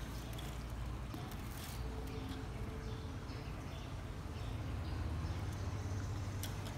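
Faint scattered taps and rustling from a kitten and a dog moving on a wooden floor and being handled, over a steady low rumble that swells near the end.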